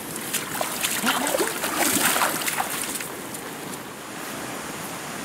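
Shallow stream water running, with splashes of feet wading through the water in the first few seconds, giving way to a steadier rushing noise near the end.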